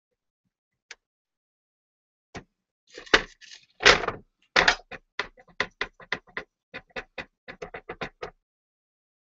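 A ceramic bowl knocked down onto a tray about four seconds in, with handling knocks around it, followed by a run of sharp clicks, about three a second, as plastic film is pressed and rubbed inside the bowl.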